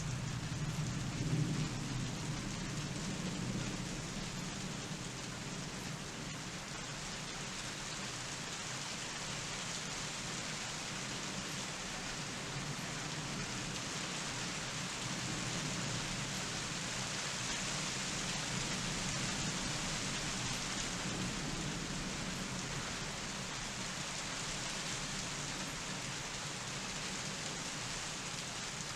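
Steady rain falling during a thunderstorm, with a low rumble of thunder swelling in the first few seconds and a fainter rumble later on.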